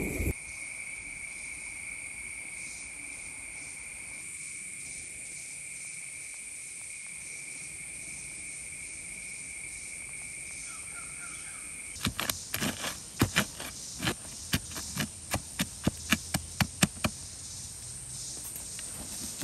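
Steady insect drone in two high pitches. About twelve seconds in the lower one stops, and a quick run of around fifteen sharp clicks or knocks follows over about five seconds.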